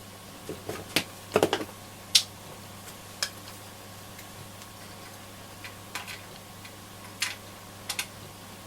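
Irregular light clicks and taps of a screwdriver and small screws and washers being handled while the radio's switch bank is freed, over a faint steady hum.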